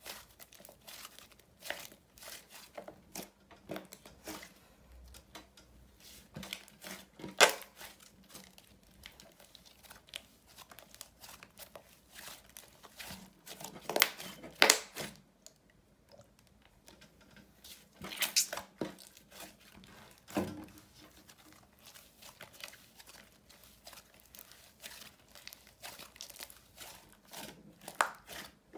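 Hands squeezing, pressing and poking a thick cream-coloured slime: a steady run of small sticky crackles and squelches, with a few louder pops scattered through.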